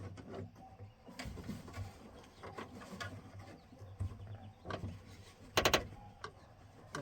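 Scattered clicks and rattles of metal and plastic door-latch hardware being worked inside a pickup's door, with a quick cluster of sharp clicks about five and a half seconds in.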